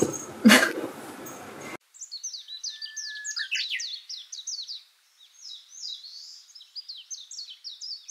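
A couple of sharp knocks in the first second or so. Then, after an abrupt cut, small songbirds chirping busily: many quick, short downward chirps, with one held whistled note near the start.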